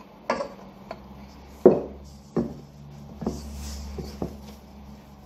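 Hands working shortbread dough in a metal mixing bowl, with flour added from a second bowl: a series of irregular knocks and thuds against the bowls, about seven in five seconds, the loudest a little over a second and a half in.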